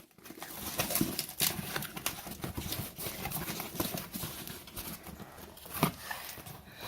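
Cardboard shipping package being opened and handled: scattered irregular knocks, clicks and scrapes with light rustling of the packing.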